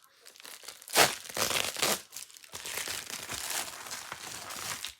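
Packaging crinkling and tearing as a package is opened by hand, with the loudest rip about a second in, then continued rustling.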